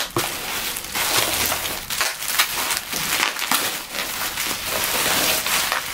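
Plastic bubble wrap crinkling and rustling as hands pull it apart to unwrap a package, a dense run of small crackles.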